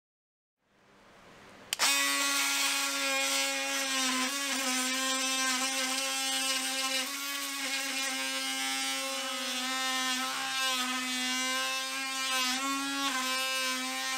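Cordless oscillating multi-tool running with a steady high buzzing whine as it cuts through a wooden wall bottom plate. It starts about two seconds in, and its pitch dips briefly a few times as the blade bites.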